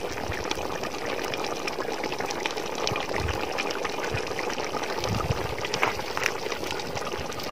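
Chicken masala simmering in a large aluminium pot over a wood fire, left to cook through: a steady bubbling hiss with many small pops.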